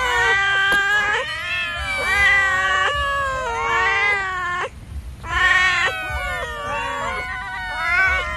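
A crowd of cats meowing at once, many overlapping calls rising and falling in pitch, with a brief lull about halfway through. The cats are begging to be fed.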